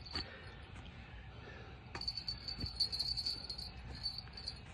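Crickets chirping in a steady, pulsing high trill that grows louder for a couple of seconds in the middle, with a few faint knocks.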